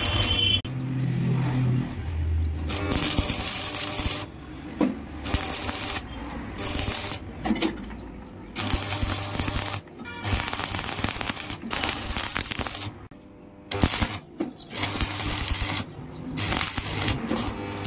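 Stick (arc) welding on steel: the electrode arc crackles and sizzles in runs of one to two seconds, broken by short pauses as short welds are laid, with a sharp tap about three-quarters of the way through.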